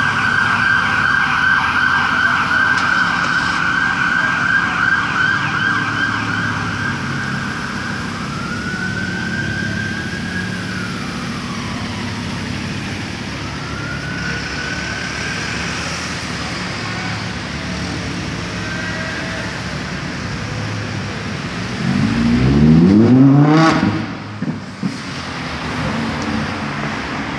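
An emergency-vehicle siren in a fast warbling yelp, then slower rising-and-falling wails, over steady street traffic. About 22 s in, the Audi R8 V10 Plus's 5.2-litre V10 revs hard in a quick rising run as the car accelerates away, the loudest sound, and drops off about two seconds later.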